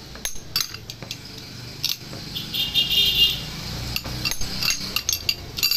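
Metal fork and spoon clinking and scraping against a metal plate heaped with fried pork pieces: a scatter of sharp clinks, with a short squeaky metal-on-metal scrape about halfway through.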